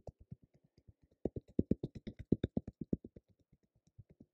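Fingertips tapping rapidly on the centre of the chest in qigong body tapping: an even run of soft thumps, about eight or nine a second. The taps are louder in the middle and softer near the start and again toward the end.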